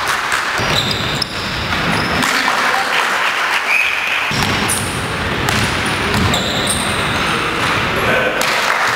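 Sound of an indoor basketball game in a sports hall: the ball bouncing on the court, short high squeaks scattered through it, and players calling out.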